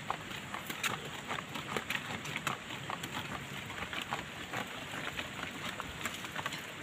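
Fish sizzling on a grill over an open fire, with many irregular crackles and pops over a steady hiss, and banana leaves rustling as a hand moves them over the fish.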